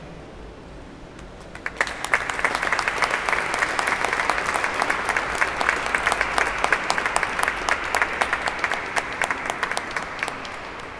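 Small audience applauding. The clapping starts about two seconds in, holds steady, and dies away near the end.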